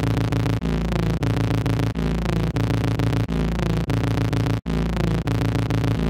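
Electronic glitch sound effect: a synthetic pitched tone with a stuttering low end, looping about every two thirds of a second. Each loop has falling pitch sweeps and is cut off by a brief dropout.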